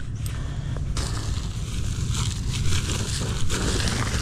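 Wood-chip mulch crunching and rustling as a gloved hand and a boot scrape and stir through it to dig out a coin signalled by a metal detector. The crackling picks up about a second in, over a steady low rumble.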